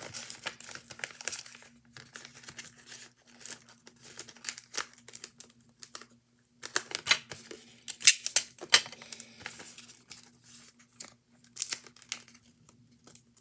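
Sticky tape being pulled, torn and pressed around the end of a handmade fidget, with irregular crinkling and ripping that pauses briefly about six seconds in.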